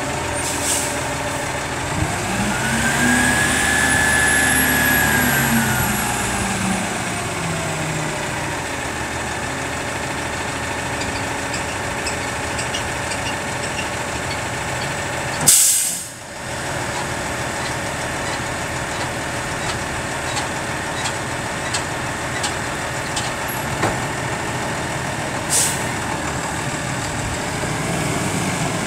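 A 2009 Sterling L8500 dump truck's diesel engine idling, revved up and back down once a few seconds in. A sharp air-brake hiss comes about halfway through, and a shorter hiss near the end.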